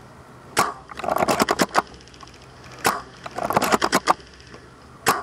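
Airsoft gunfire: three sharp snaps about two seconds apart, each followed by a quick, irregular rattle of clicks.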